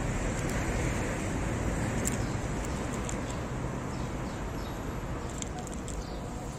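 Steady street traffic noise, with a few faint clicks of a cat crunching dry kibble, mostly near the middle and toward the end.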